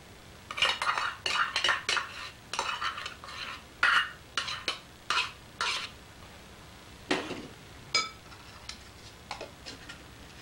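Metal spoon scraping and knocking dollops of sour cream off into a glass mixing bowl: a quick run of short scrapes and taps, then a single ringing clink of spoon on glass about eight seconds in.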